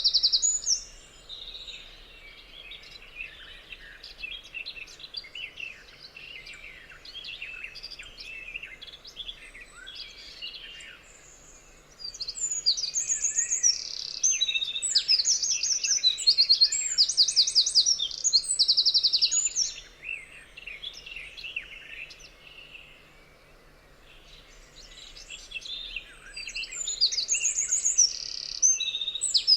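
Several songbirds singing: loud, fast trilled phrases of repeated high notes come in stretches, one lasting from about twelve seconds in for some seven seconds and another near the end. Softer scattered chirps fill the quieter stretches between them.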